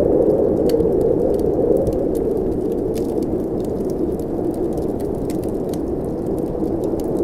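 Low, steady rush of blizzard wind, with scattered sharp pops and crackles from a fireplace fire on top.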